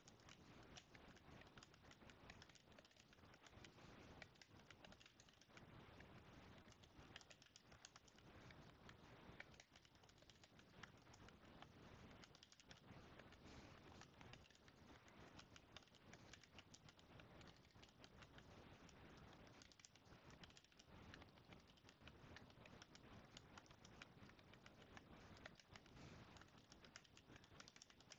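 Faint computer keyboard typing: a steady, dense run of key clicks.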